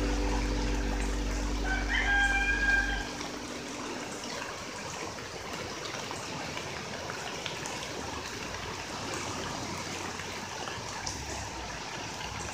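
Rushing floodwater in a swollen, muddy creek, a steady even hiss. Background music fades out over the first three or four seconds, and a single short bird call sounds about two seconds in.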